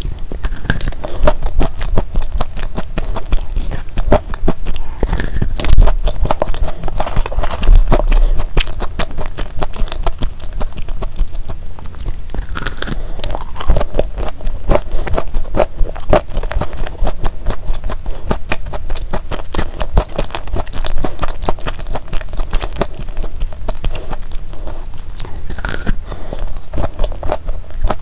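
Close-miked chewing of a thick sandwich cookie with a soft filling: steady munching with crunches and many small, irregular mouth clicks.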